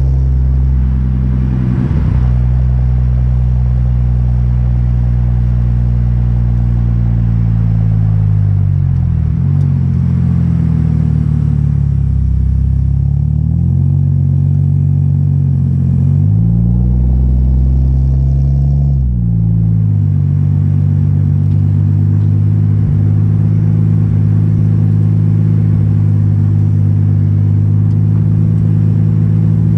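Exhaust of a Toyota Aristo's 2JZ twin-turbo inline-six, heard right at the tailpipe while driving. The engine note is a steady low drone that dips and rises in pitch several times in the middle, then holds steady.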